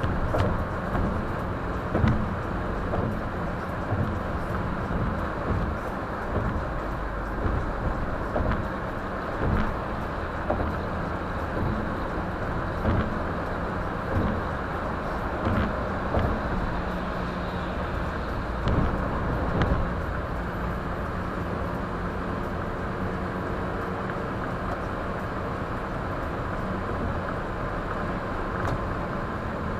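Car driving, heard inside the cabin through a windshield dashcam: a steady rumble of tyre and road noise with a low engine hum. Frequent short thumps and knocks come through the first two-thirds, then the ride turns smoother.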